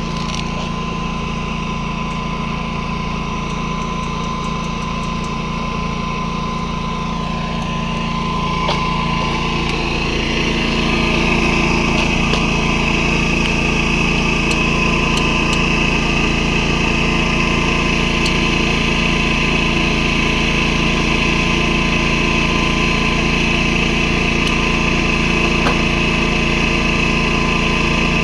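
Predator 11,500-watt inverter generator's engine running steadily. About ten seconds in it speeds up and gets a little louder, then holds at the higher speed.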